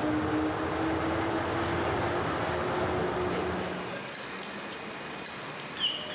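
Yurikamome rubber-tyred train running, heard from inside the car: a steady rumble with a motor whine. About four seconds in this gives way to a quieter station hall with a few sharp clicks, then two short high beeps near the end from the automatic ticket gates.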